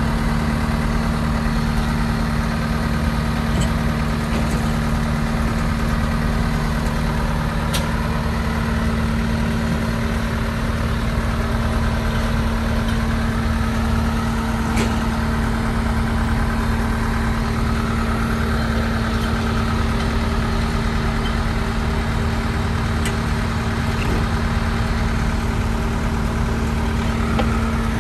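Diesel engine of a heavy road roller running at a steady speed, a constant low hum with no change in pitch or load.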